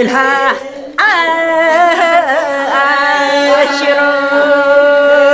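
An elderly woman singing alone: a short phrase, a brief break, then from about a second in one long held note with wavering ornaments.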